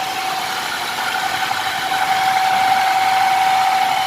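Hyundai Santa Fe drivetrain humming while driving on the road: a steady whine held at one pitch over the running of the vehicle. This humming noise is the owner's complaint, and it is put down to the transfer case.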